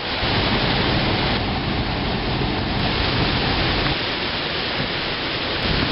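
Hurricane wind and driving rain: a loud, dense, steady rushing noise.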